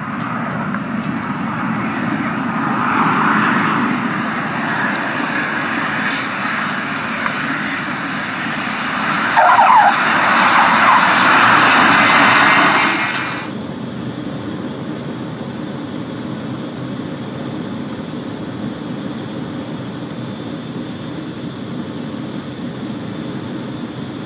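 Transall C-160's two Rolls-Royce Tyne turboprops running on approach and landing: a steady propeller drone with a high whine that rises slowly, cutting off abruptly about thirteen seconds in. After that, a quieter, steady rush of air and engine noise in a fighter cockpit during air-to-air refuelling.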